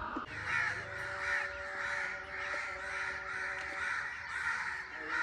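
Crows cawing over and over, about two calls a second.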